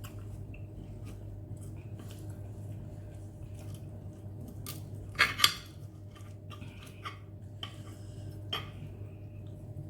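Cutlery clinking against a bowl during a meal of instant noodles: scattered light clicks, with two sharp, louder clinks close together about five seconds in, over a steady low hum.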